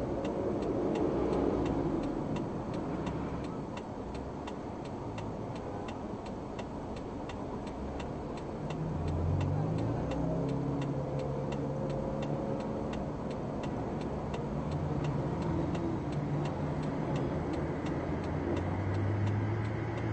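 A car's turn-signal indicator ticking steadily about twice a second inside the cabin, fading out a few seconds before the end, over the low rumble of traffic. From about nine seconds in, a passing truck's engine adds a steady hum.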